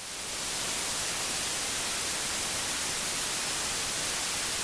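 Television static: a steady hiss of white noise like an untuned analogue TV.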